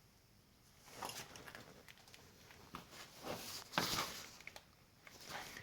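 A few faint, scattered knocks and rustles, with the loudest around three to four seconds in.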